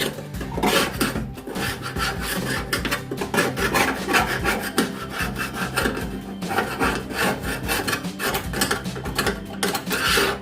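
Rapid back-and-forth scraping and rubbing strokes by hand on metal, in quick runs with brief pauses.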